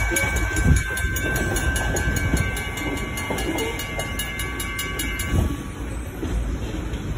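CSX freight train's covered hopper cars rolling past, wheels rumbling and clacking over the rail joints with occasional heavier thumps. A steady high-pitched ringing sounds over it and stops about five seconds in.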